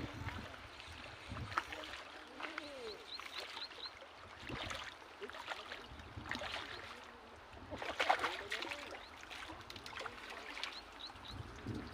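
Outdoor ambience with a bird's short, high chirps repeating in quick runs, over scattered clicks and rustles of handling, louder about eight seconds in.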